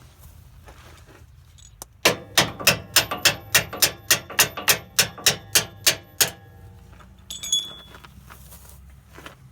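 A hammer striking a steel bolt about fifteen times in quick succession, roughly three to four blows a second, each with a short metallic ring, then a light metallic clink. The blows are driving the factory cam bolt out of a Nissan Xterra's front lower control arm.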